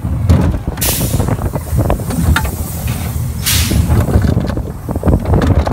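Steel roller coaster car running along its track with a steady low rumble of wheels, and two short, loud hisses of released air about a second in and again about three and a half seconds in, typical of the ride's pneumatic brakes.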